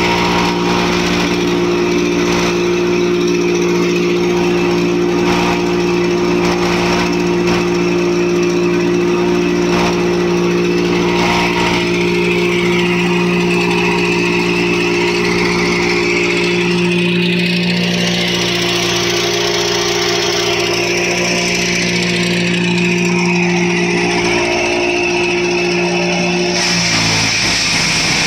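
Fortune Agro S306 wood chipper's 12 hp engine running steadily at speed. Near the end its note sags briefly in pitch as the chipper takes load, with chips thrown out of the discharge chute.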